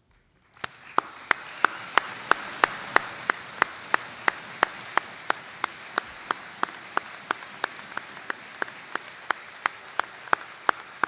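Audience applauding in a large hall, starting about half a second in. Over the crowd's even clapping, one set of hands claps loudly and steadily about three times a second.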